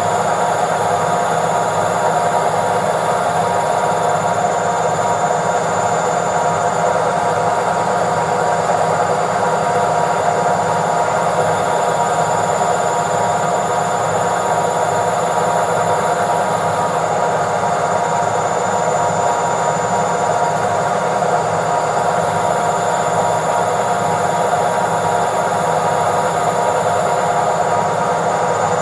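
Washing machine in its spin cycle, running steadily at full speed: an even whirring hum with a few constant high tones over it.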